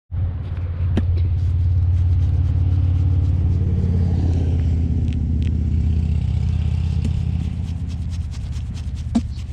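A motor running steadily with a low hum, with a few sharp clicks over it, the strongest about a second in and near the end.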